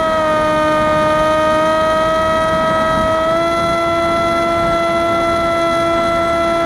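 Electric motor and 6-inch propeller of an FPV flying wing running as a steady high whine over a rushing noise. The pitch dips slightly at the start and steps up a little about three seconds in.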